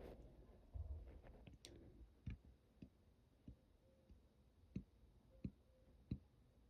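Near silence broken by several faint, irregularly spaced clicks and soft low knocks.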